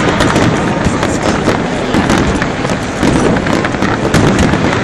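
Fireworks display at full barrage: many shell bursts and crackles overlapping in a dense, continuous rapid clatter, easing slightly midway before picking up again.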